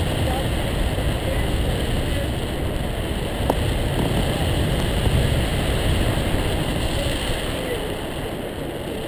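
Steady wind noise from the airflow rushing over the microphone of a pole-mounted camera on a tandem paraglider in flight, strongest in the low end.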